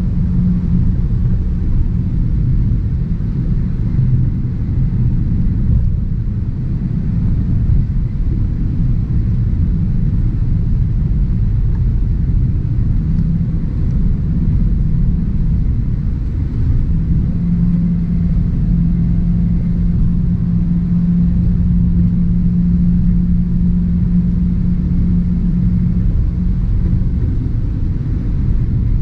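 A 2023 Toyota Avanza 1.3 CVT cruising at steady highway speed, heard from the cabin: a constant low drone of engine and road noise. A steady low hum in it grows stronger past the middle and eases off near the end.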